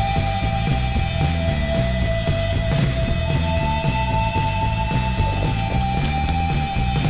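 Fast rock music: a quick, steady drum beat over a moving bass line, with long held notes on top.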